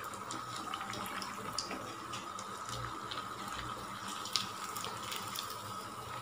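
Paneer cutlets deep-frying in hot oil: a steady sizzle with scattered small crackles as the oil bubbles around them. A light knock about four seconds in.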